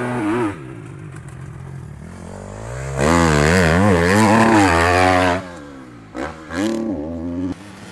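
Motocross dirt bike engine revving hard, its pitch rising and falling with the throttle. It is loudest for a couple of seconds in the middle, then drops off, with fainter engine sound after.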